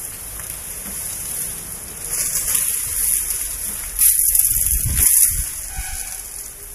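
Palm fronds rustling and crackling as an Asian elephant pulls and shakes them with its trunk while feeding, loudest in bursts about two seconds in and again between four and five seconds.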